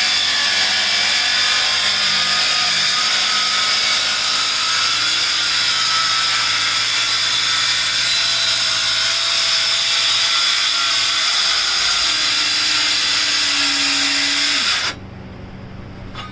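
Battery-powered power saw cutting through wood, its motor running steadily under load with a slightly wavering pitch, then stopping abruptly near the end.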